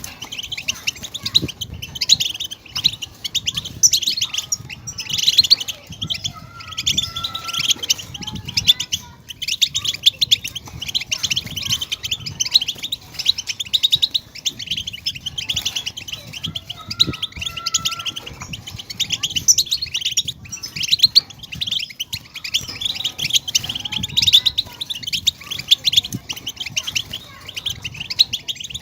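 European goldfinch twittering: a fast, unbroken stream of high chirps and trills with a few short, lower held notes.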